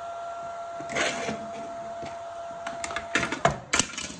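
Steady high-pitched whine from a powered Sihlin SE2 inverter drive running at 50 Hz with no motor connected. The whine stops about three seconds in as the drive is switched off, followed by a flurry of sharp clicks and knocks from its plastic parts being handled.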